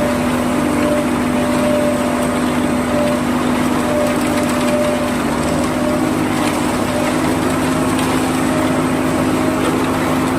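Ajax Fiori self-loading concrete mixer's diesel engine running steadily while the mixer unloads concrete, with a constant hum.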